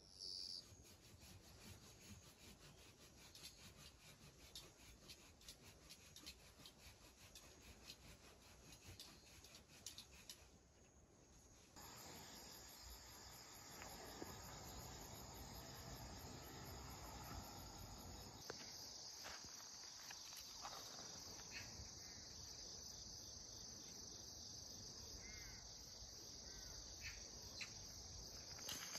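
Crickets and other insects chirping, a faint high trill that goes on throughout.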